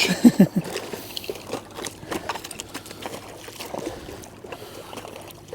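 Footsteps crunching and scraping irregularly on thick ice, from boots fitted with metal spike grips.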